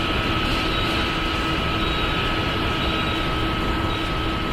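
Steady industrial machinery drone with a constant high-pitched whine running through it.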